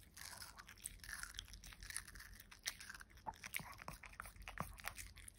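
Shih Tzu biting and chewing a thin slice of watermelon, rind and all: a run of small, irregular crunches.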